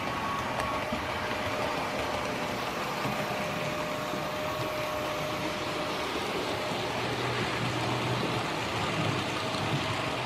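HO-scale model trains running on the layout: a steady rumble and rattle of metal wheels on the track, with a faint steady motor whine.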